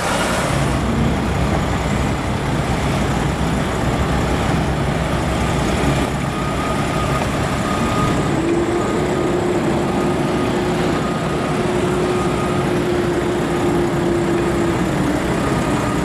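Diesel engine of a semi tractor without a trailer running as the truck rolls slowly past and pulls into a gateway, a steady low rumble. A steady tone joins in about halfway through and fades out near the end.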